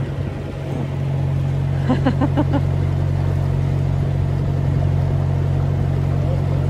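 Narrowboat's diesel engine running steadily at cruising pace, a low even drone. About two seconds in comes a brief run of about five short pitched notes over it.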